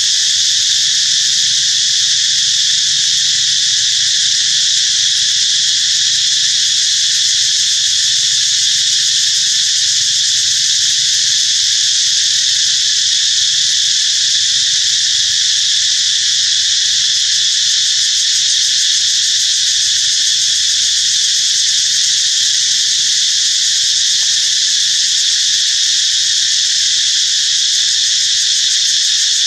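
A loud, steady insect chorus: a dense high-pitched buzz that holds unchanged throughout.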